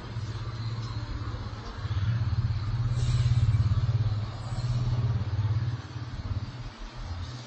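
A small engine running, its sound swelling about two seconds in, dipping briefly in the middle, then rising again and fading near the end.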